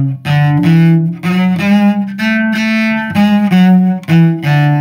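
Solo cello playing a one-octave A major scale up and back down in short, detached staccato notes with hooked bowing. Longer and shorter notes alternate in a lilting 6/8 rhythm, and the pitch changes each time the rhythm changes.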